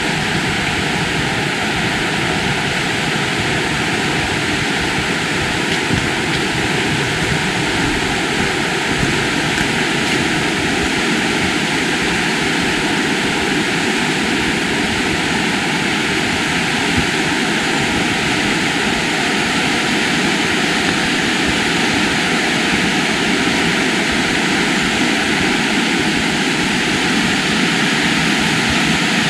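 Steady, loud rush of fast-flowing river water, the River Wharfe running over rocks, an even noise with no change.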